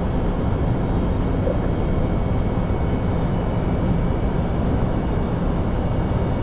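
Steady flight-deck noise of an Airbus A320neo in flight: an even rush of airflow and ventilation, strongest in the low range, with a few faint steady high tones over it.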